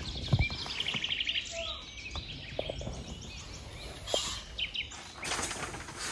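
Birds singing, with fast trills and chirps, and a single thump about half a second in.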